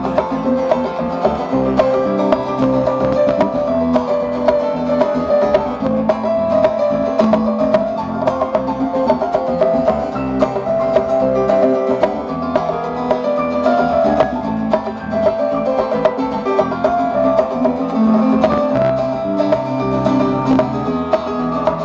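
Live band playing an instrumental passage: acoustic guitar strumming and picking over electric bass and a drum kit, steady and continuous.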